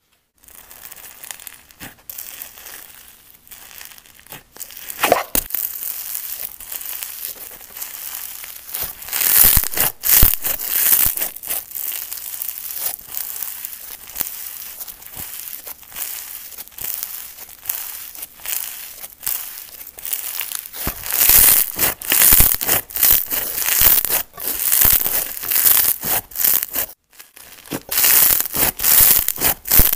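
Fluffy, grainy green slime being stretched, folded and pressed by hand, giving dense crackling and crinkling with tearing sounds as it pulls apart. The crackles come in rhythmic squeezes in the second half, with a brief pause a few seconds before the end.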